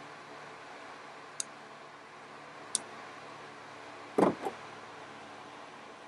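Two sharp snips of cutters through a cracked plastic vacuum line, about a second apart. About four seconds in comes a louder short scrape of the hose being handled, all over a faint steady hum.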